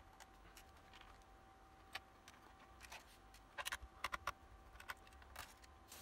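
Faint, scattered light clicks and taps of a small Phillips screwdriver and tiny screws being undone from a laptop's plastic bottom cover, with a quick cluster of clicks a little past halfway.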